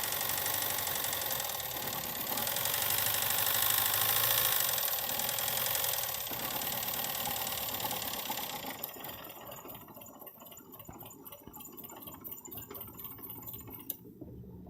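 Opel Z14XEP 1.4-litre four-cylinder petrol engine running with a piston knock from the first cylinder, the sign of a dying engine. About nine seconds in the sound falls away to a quieter, rapid ticking, which cuts off near the end.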